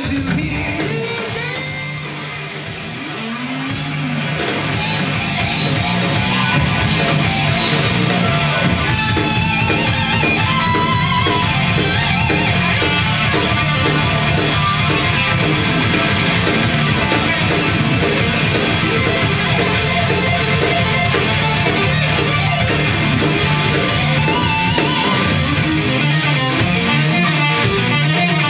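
Live rock band playing loud, with distorted electric guitar, bass guitar and drum kit. The music eases off about two seconds in and builds back up to full volume within a few seconds.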